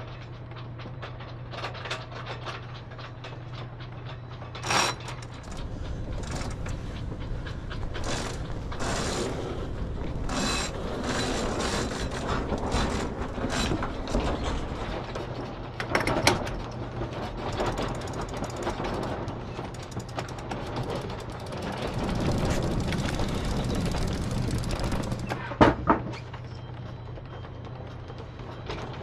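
Headsail being set on a sailing yacht: a sheet line hauled by hand and a cockpit winch ratcheting in runs of quick clicks, with a few sharp knocks. A steady low hum stops about five seconds in.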